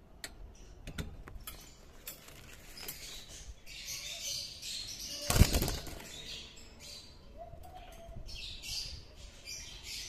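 Young Hagoromo budgerigars fluttering and flapping their wings in a wire cage: scattered light taps and rustles, with one loud burst of flapping about five seconds in.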